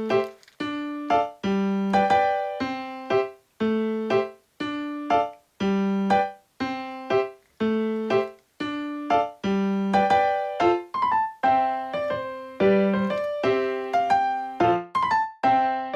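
Background music: a keyboard melody of short, separate piano-like notes, about two a second.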